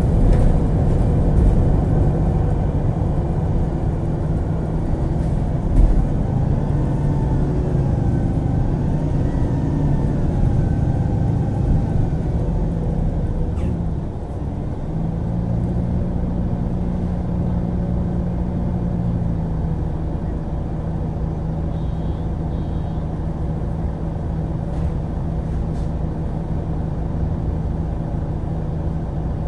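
MAN Lion's City G articulated city bus with a ZF Ecolife automatic gearbox running, a steady drivetrain hum with a whine that rises and falls in pitch in the first half. About halfway the sound drops a little and settles into an even, steady hum.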